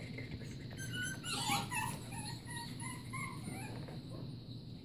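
A litter of young puppies squeaking and yipping as they play, a string of short high whimpers, busiest in the middle.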